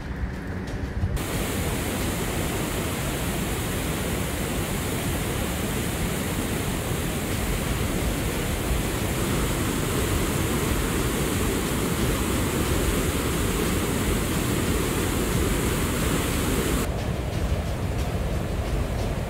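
A flooded river pouring over a weir: a loud, steady rush of churning white water that begins about a second in. Near the end it turns duller and lower, with less hiss.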